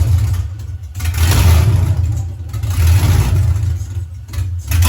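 LS1 V8 with Kooks headers running just after a cold start, swelling and easing in level about every second and a half as it is revved.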